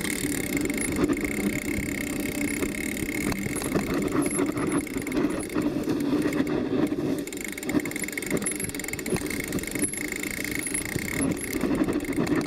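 Bike riding over a rough dirt and grass trail: a steady rumble of the knobby tyre on the ground with a continuous dense rattle from the frame.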